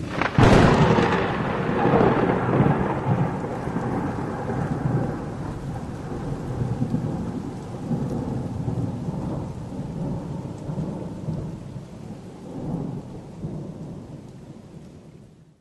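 Thunder: a sudden sharp crack about half a second in, then a long rolling rumble that swells again a few times and slowly fades.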